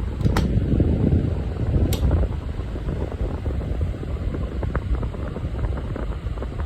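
Lasko Model 2000 table fan running on high speed with a steady rush of air; with this blade it runs in good balance. Two faint ticks come in the first two seconds.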